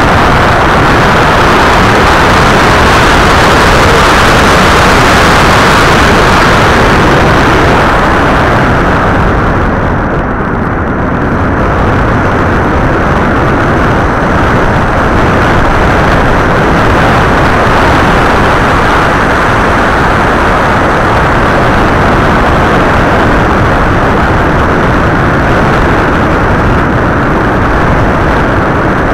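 Loud, steady rush of airflow and propeller noise picked up by the onboard camera of a radio-controlled FPV model aircraft in flight, easing briefly about ten seconds in.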